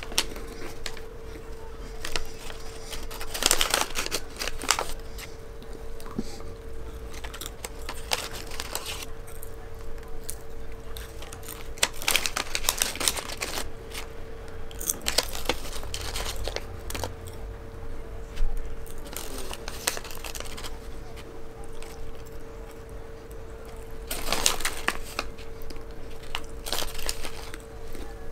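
White paper french-fry sleeve crinkling and rustling in several bursts a few seconds apart as fries are picked out of it, with chewing in between. A faint steady hum sits underneath.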